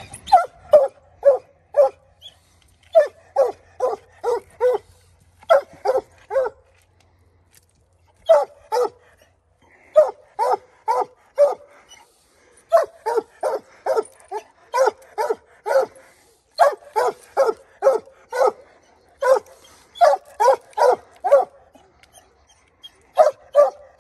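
Young coonhounds barking treed up at a raccoon in a tree. The barks are loud, short and repeated in quick runs of several at a time, about three or four a second, with brief pauses between runs.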